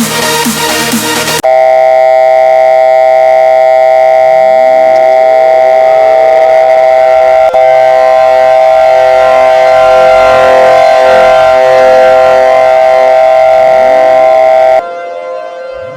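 Electronic dance music cuts off about a second and a half in. A loud, steady electronic alarm tone of several fixed pitches follows, the attention signal of a mock emergency alert broadcast, with faint sweeping tones beneath it from about four seconds in. Near the end the alarm tone stops abruptly and only the quieter sweeping tones remain.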